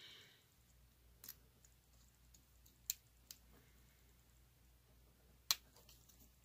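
Faint, sharp metal clicks from pliers squeezing a metal staple shut through the ends of a leather treadle belt: four separate clicks, the loudest about five seconds in.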